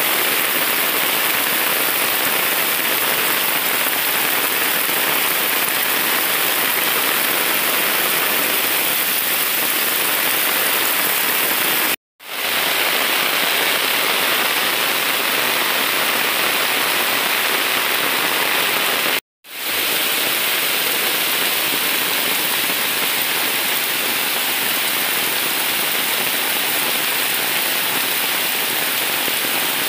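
Heavy monsoon rain pouring onto floodwater, leaves and wet ground: a loud, dense, even hiss that breaks off for a split second twice.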